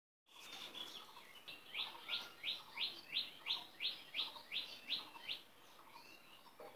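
A bird calling in a fast, even series of about a dozen short rising chirps, around three a second, after a few softer chirps at the start.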